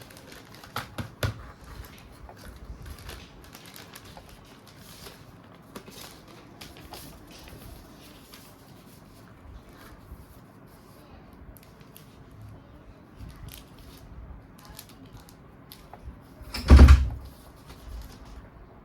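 Small clicks and taps of a smartphone being handled, with a single loud thump near the end.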